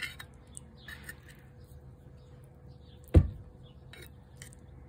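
A utensil clinking against a ceramic plate right at the start as food is scraped, with a few faint ticks after, then a single dull knock about three seconds in, the loudest sound.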